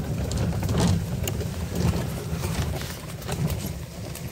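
A small off-road vehicle driving slowly over a leaf-covered dirt track: a steady low rumble with scattered light ticks and rustles.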